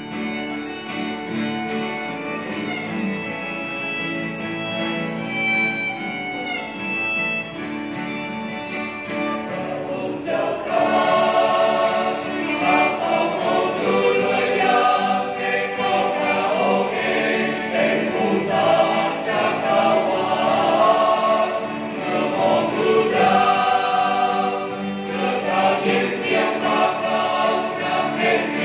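Small mixed choir singing a hymn in Thai, accompanied by strummed acoustic guitars and a violin. For about the first ten seconds the violin plays the melody over the guitars, then the voices come in, louder.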